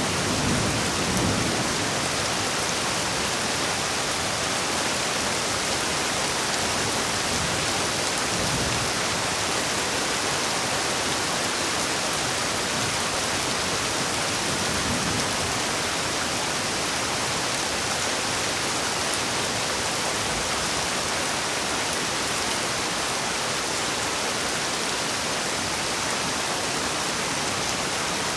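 Heavy, steady rain. A low roll of thunder dies away in the first second or so, and faint low rumbles come and go later.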